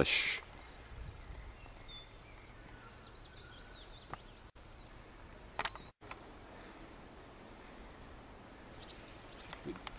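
Faint open-air background noise with a few thin, high bird chirps between about one and four seconds in, and a couple of soft clicks around the middle.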